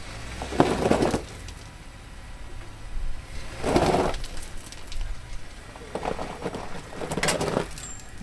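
Jeep engine running low and steady in a rock crawl, with four short surges of power as the vehicle tries to climb out of a tight rock crevice, tyres pressing and scrubbing on the rock. The Jeep is stuck and needs to be pulled out.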